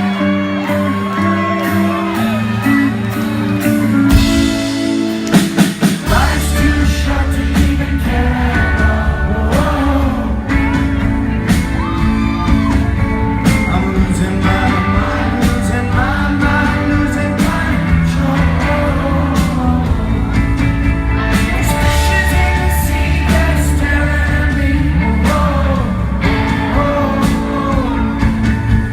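Rock band playing live with a lead singer; after a run of drum hits, the full bass and drums come in about six seconds in.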